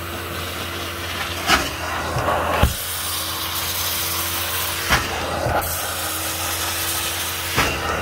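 Carpet extraction machine's vacuum motor running steadily while its stair hand tool is drawn over the carpet, with four brief knocks as the tool is moved on the step.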